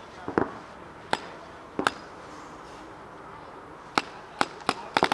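Paintball markers firing: three single shots in the first two seconds, then a quicker string of about four shots near the end.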